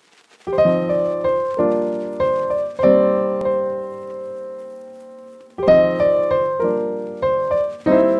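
Background music played on piano: struck chords and notes that ring and fade. One long chord dies away through the middle, and a new phrase starts about five and a half seconds in.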